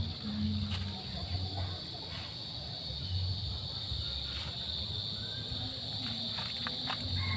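Outdoor ambience: a steady high-pitched insect drone over a low, uneven rumble, with a few faint clicks.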